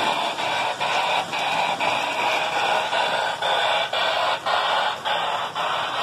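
Lionel Electronic Sounds of Steam tender on a New York Central 8206 4-6-4 Hudson giving a loud, steady run of hissing electronic chuffs, about two a second, as the engine runs.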